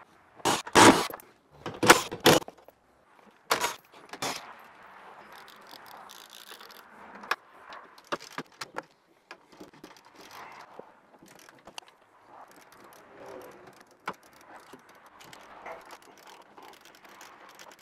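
Metal hand tools clattering in several loud strikes, then a long run of quieter irregular clicking and scraping as a socket ratchet loosens the Mustang dash's 10 mm and 13 mm side bolts at the door pillar.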